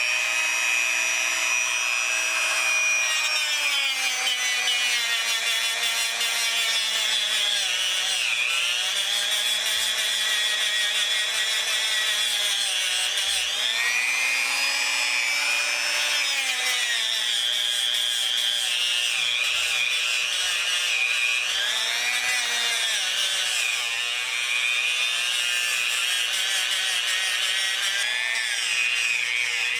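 A small variable-speed power tool polishing the plated metal ferrule of an old hand drill with metal polish, run at moderate speed. Its motor whine dips in pitch and recovers over and over as the tool is pressed against the part and eased off.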